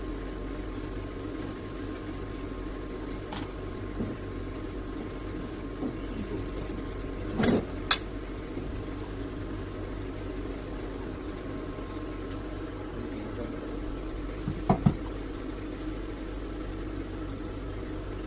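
A steady electrical machine hum with a faint high tone over it, broken by two sharp clicks about halfway through and a pair of short knocks later on.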